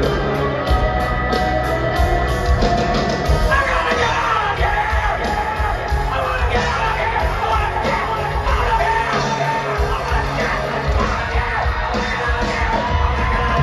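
A live rock band playing in an arena: guitars, bass and drums, with the singer yelling and singing over them.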